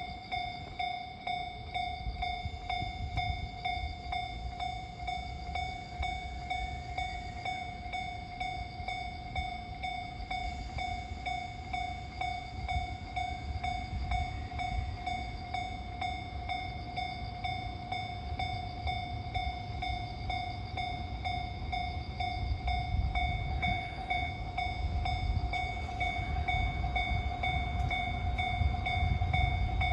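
Japanese railway level-crossing alarm ringing, a steady, evenly pulsing electronic ding-ding, over the low rumble of a freight train hauled by an EF210 electric locomotive that grows louder toward the end.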